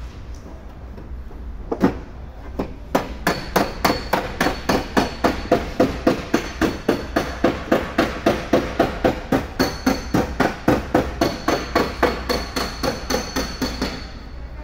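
Hammer blows on metal: a few single strikes, then a steady run of rapid blows, about four a second, with a high ringing tone through parts of it, stopping near the end.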